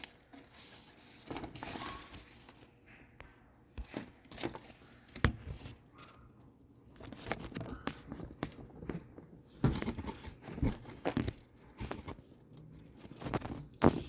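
Irregular rustling, crinkling and scraping, with scattered sharp knocks, the strongest about five seconds in.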